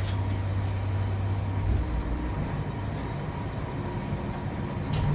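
Tosa Kuroshio Railway 8000-series diesel railcar's engine running with a steady low hum, with a short click near the end.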